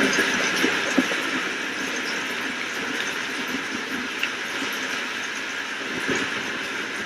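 Steady rain: an even hiss with small scattered drop taps, a little louder in the first second and then holding level.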